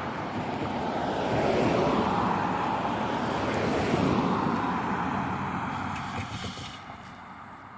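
A vehicle passing by. Its noise swells through the middle, with a slight shift in pitch, then fades away near the end.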